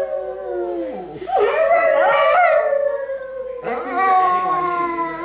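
Small white shaggy dog howling: long drawn-out howls that slide down in pitch, with two short breaks between them.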